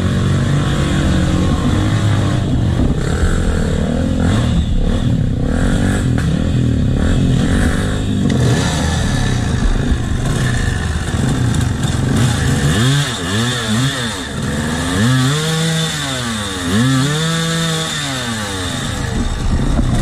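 Two-stroke dirt bike engines revving hard under load on a steep, rutted climb. In the second half the loudest engine rises and falls in pitch in about four long bursts of throttle.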